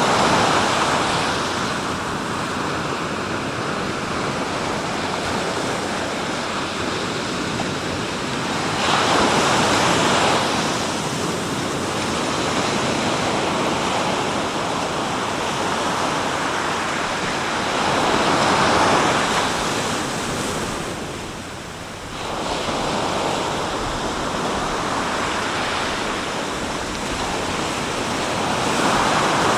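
Sea waves breaking on the shore in a slow rhythm, a surge about every nine seconds (four in all), with a steady wash of surf between them.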